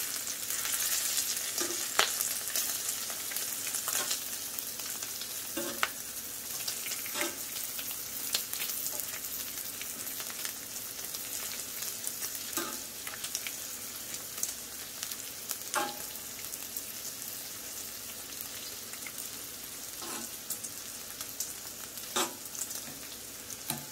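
Bacon sizzling steadily on a Blackstone 22-inch tabletop griddle, with metal tongs clicking and tapping on the griddle top every few seconds as the strips are turned.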